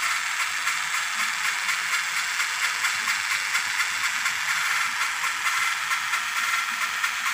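A steady hissing, gritty noise with a fine, fast rattle running through it.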